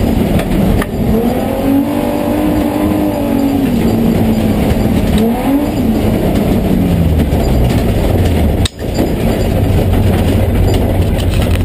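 1987 BMW E30 engine heard from inside its stripped-out cabin, revving up and down under throttle on dirt, then settling to a low steady idle about seven seconds in as the car slows. The sound cuts out briefly near the end.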